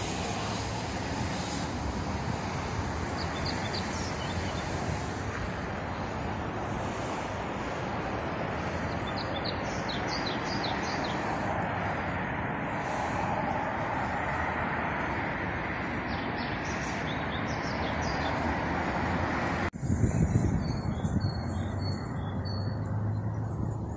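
Steady rush of outdoor background noise with small birds chirping now and then. About twenty seconds in the background changes abruptly, a brief low rumble follows, then a bird gives a quick run of four repeated chirps.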